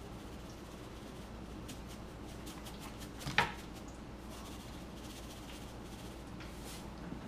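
Faint ticks and rattles of seasoning being shaken from a shaker onto a fish fillet, with one sharp knock about three and a half seconds in, over a steady low hum.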